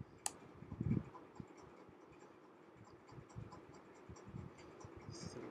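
Quiet desk noises of someone working at a computer: one sharp click just after the start, a low thump about a second in, then faint scattered ticks and rustling.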